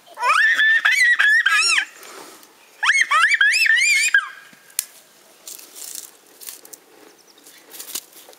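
Puppy whining in two long, high, wavering cries, the first lasting nearly two seconds and the second following about a second later, then only faint clicks and rustling.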